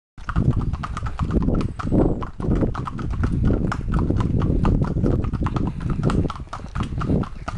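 Hooves of two small ponies walking on a tarmac lane, a quick, uneven clip-clop of many strikes, over a heavy low rumble.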